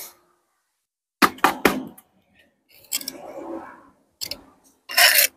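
Mortar being worked into a brick joint by hand and trowel: a few quick knocks about a second in, then a short scrape and a louder rasping scrape near the end.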